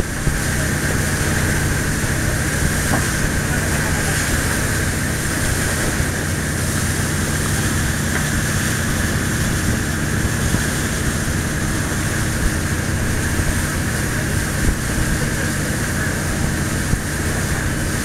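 A riverboat's engine running steadily under way, a constant low drone with a steady rushing noise over it.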